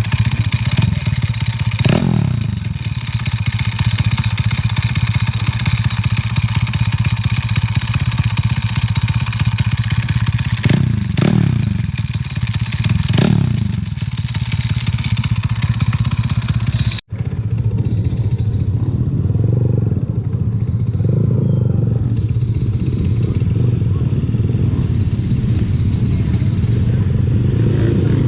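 Monkey mini bike's single-cylinder engine idling, with the dry clutch's steady metallic rattle over the engine note, blipped three times and falling back to idle. About two-thirds in there is a brief dropout, after which the rattle is much fainter while the idle carries on.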